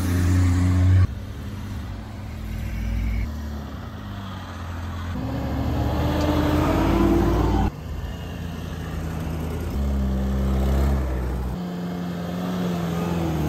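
Pickup trucks and SUVs driving past one after another on a sandy dirt track, their engines running, heard in several short shots that change abruptly. About halfway through, one engine rises in pitch as it accelerates.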